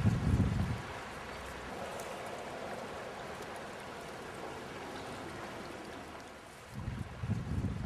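Steady rush of flowing river water, with two short low rumbles on the microphone, one near the start and one near the end.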